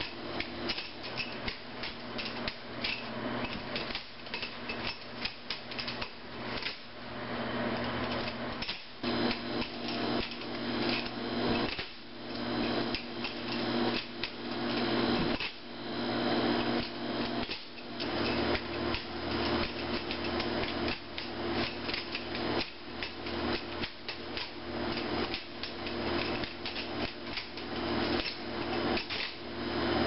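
Balisong (butterfly knife) being flipped: rapid, irregular metallic clicks and clacks as the handles swing round and snap against each other. A steady hum runs underneath.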